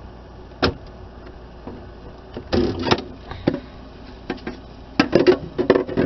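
Plastic air-vent cover inside a refrigerator being pried loose with a screwdriver: a sharp click, then two bursts of plastic clicking and clattering as the centre hook lets go and the cover comes away.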